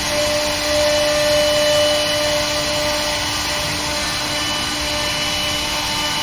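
CNC wood router running, a steady machine noise with a constant whine over it.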